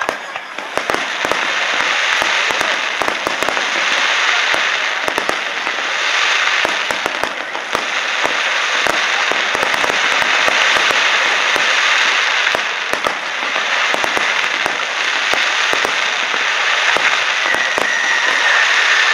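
Aerial fireworks bursting in a continuous barrage, a dense crackle of many sharp pops from the bursting stars. A whistle falls slightly in pitch near the end.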